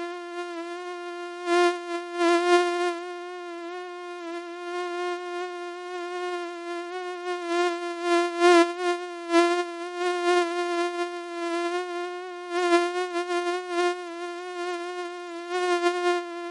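Mosquito whining: one steady buzzing tone that wavers slightly in pitch, with a few short louder, rougher moments, the loudest about eight and a half seconds in.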